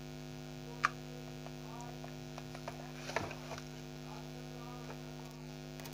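Steady electrical mains hum, with a sharp click about a second in and a few softer knocks about three seconds in as the mosquito racket and its charging lead are handled.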